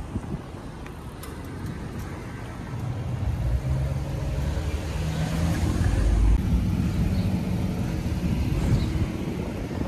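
Road traffic with a car engine humming close by, growing louder from about three seconds in and easing off near the end.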